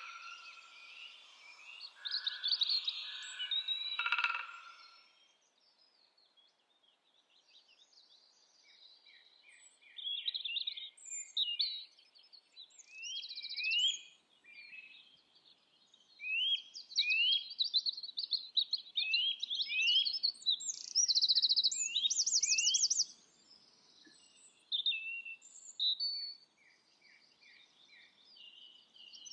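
A songbird singing its evening song in short phrases of quick, high, repeated upward-sweeping notes and rapid trills, after a few seconds of quiet. It follows a louder, lower sound in the first four seconds.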